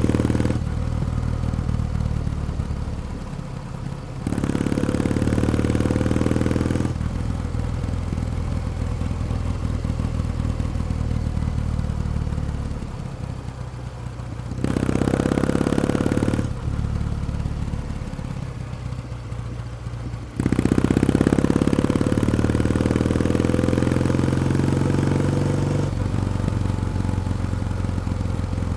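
Kawasaki W1 Special's vertical-twin engine running under way. Its pitch rises through three spells of acceleration, the last and longest starting about two-thirds of the way in, and it drops back to a lower, steadier beat between them.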